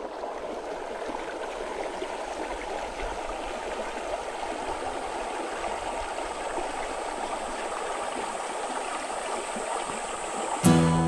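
Shallow creek water running over rocks in a small riffle, a steady rushing babble. Near the end, acoustic guitar strumming cuts in over it.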